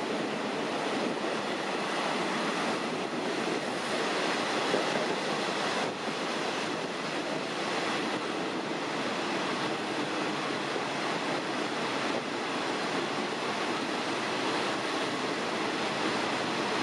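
Steady rushing noise of a train running at speed on the rails, wheel and wind noise without a break.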